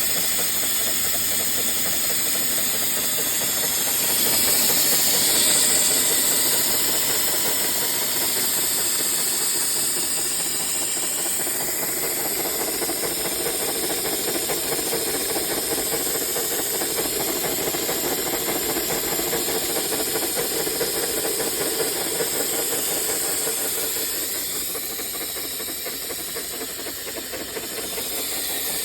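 Live steam model boat's steam engine running with a steady hiss of escaping steam. It swells a little about five seconds in and eases off near the end.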